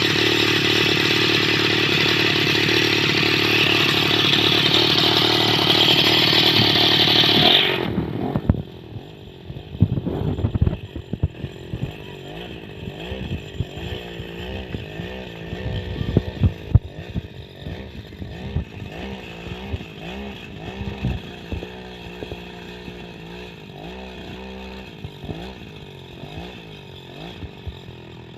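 Home-built RC truck's motor and drivetrain running. It whines loudly and steadily for about eight seconds, then drops off and runs quieter, its pitch rising and falling as the throttle changes, with scattered clicks and clatter.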